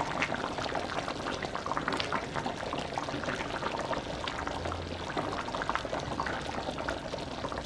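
Red rice in tomato broth boiling hard in a wide stainless steel pan: a dense, steady bubbling and popping as the liquid cooks down and thickens, while a plastic spoon stirs through it.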